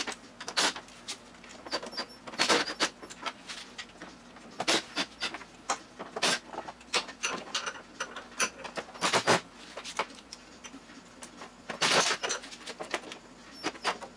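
Cordless driver with a 3/8 socket on wobble extensions run in short spurts to back off the clutch belt-housing nuts, among scattered sharp metal clicks and clinks of the socket and nuts.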